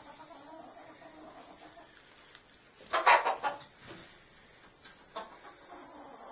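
Chickens clucking: soft, low clucking over the first two seconds, then a loud run of several short clucks about three seconds in, and a few fainter ones later.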